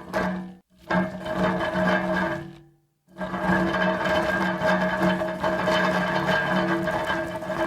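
Metal hand truck rolling steadily, its wheels and metal frame giving a continuous whirring rattle with a ringing hum. It cuts out briefly less than a second in, then fades to silence just before 3 s in and starts rolling again.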